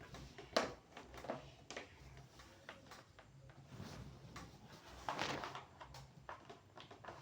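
Scattered knocks and clicks, with a louder rustling burst about five seconds in, over a faint low hum.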